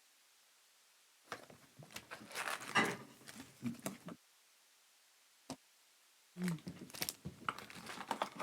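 Trading cards and their packaging being handled at close range: two stretches of rustling with small clicks and taps, the first starting about a second in and the second about six seconds in, with a single click between them.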